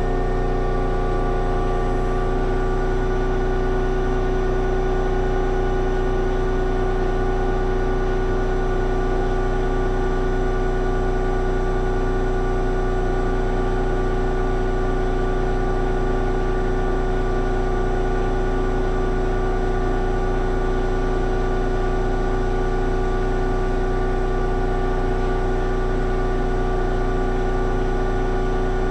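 Schulthess Spirit eMotion 7040i washing machine in its final spin at full speed, 1800 rpm: a steady motor and drum whine with a low hum.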